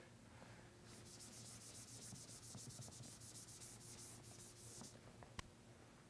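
Whiteboard eraser rubbed quickly back and forth across a whiteboard, wiping off dry-erase marker drawings, faint, for about four seconds; a single sharp click follows shortly after the rubbing stops.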